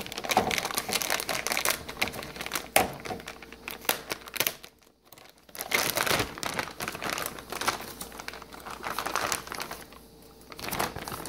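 Metallic anti-static plastic bag crinkling as it is handled and its taped flap pulled open, in irregular rustles with a short pause about halfway through.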